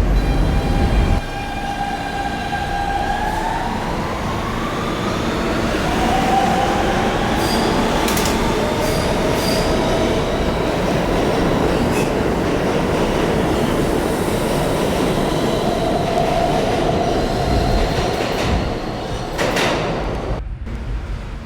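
R160 subway train running on the rails, with a steady rumble of wheels on track. Its motor whine holds a steady pitch and then rises about three seconds in as the train picks up speed. A few sharp clicks come from rail joints, and a heavy low rumble drops off suddenly about a second in.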